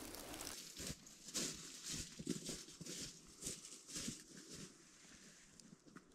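A series of soft rustles and scuffs, about two a second, that die away about four and a half seconds in.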